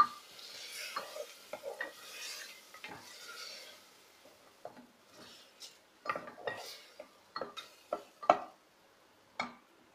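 Wooden spatula stirring and scraping mutton against the metal pot of a pressure cooker, in scattered short scrapes and knocks. A faint sizzle of the meat frying on high flame is heard in the first few seconds and then dies away.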